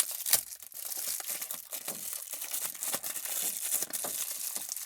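Plastic bubble wrap crinkling and crackling in irregular bursts as hands fumble to pull an item out of it.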